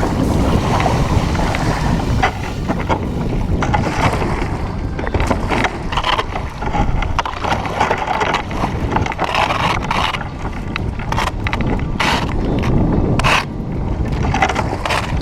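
Wind buffeting the GoPro microphone on a sea kayak working through drifting river ice, with a run of sharp splashes and knocks in the second half from paddle strokes and ice against the boat.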